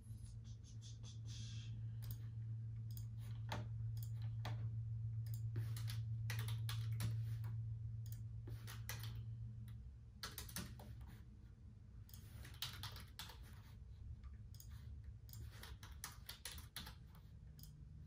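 Typing on a computer keyboard: irregular runs of key clicks with short pauses. Under it a low steady hum that drops away about ten seconds in.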